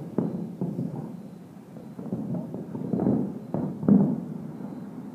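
Aerial fireworks shells bursting some way off: a rapid string of deep booms that rumble like thunder, the loudest about four seconds in.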